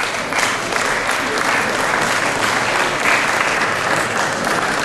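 Audience applauding steadily, a dense patter of many hands clapping that starts right as the prize is called.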